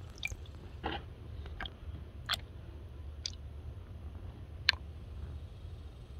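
Transmission fluid pouring from a plastic jug into a metal funnel, with a handful of short glugs and splashes at irregular moments, the sharpest near the end, over a low steady hum.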